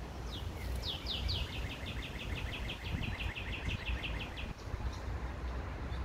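A small songbird calling: after a few lead-in notes, a rapid, even series of about twenty short, high, down-slurred notes lasting about three and a half seconds. A steady low rumble runs underneath.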